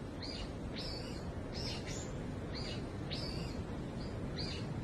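A small bird calling in short, high chirps that drop in pitch, about eight of them at roughly two a second, over a steady low outdoor background hiss.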